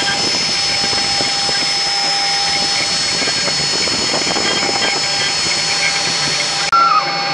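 A VFD-driven, water-cooled 2.2 kW high-speed spindle whines steadily with several high tones, over the noise of a small tapered bit cutting a 3D relief in wood. Near the end the sound changes abruptly and the higher tones drop out.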